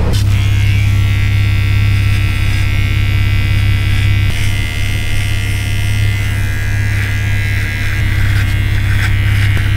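Cordless electric hair trimmer running with a steady buzz as it cuts hair on the side of the head.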